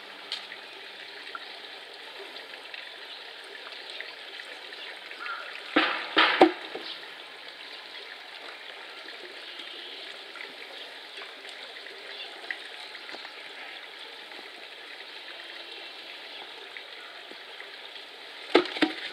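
Steady trickle of running water, with a cluster of loud knocks about six seconds in and two sharp knocks near the end.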